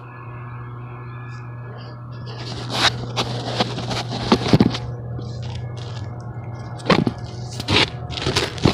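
Gritty crunching and scraping on a mineral-granule flat roof surface, with sharp irregular crackles starting about two and a half seconds in, over a steady low hum.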